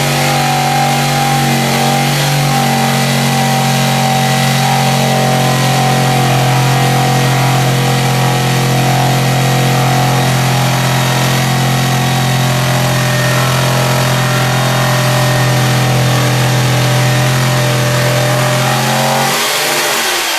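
Corded jigsaw sawing through a wooden framing board, its motor and blade running at a steady pitch, stopping shortly before the end.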